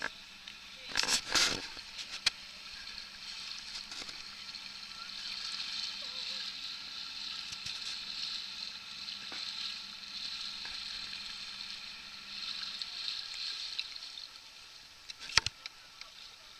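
Close-up fizzing hiss of water moving around a small boat at water level, steady through the middle, with a few sharp knocks about a second in and one more near the end.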